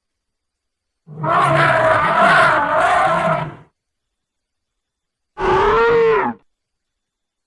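Fictional creature sound effect built from mid-sized ceratopsian dinosaur calls: a long rough call starting about a second in and lasting about two and a half seconds, then a shorter call near the end whose pitch rises and falls, with dead silence between them.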